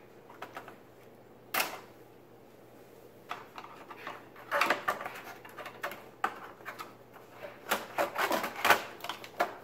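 Hands working on the wiring and plastic parts inside an opened electric cooktop. One sharp click comes about one and a half seconds in. From about four and a half seconds there is a run of irregular clicks and rattles as wires, connectors and the plastic board housing are handled.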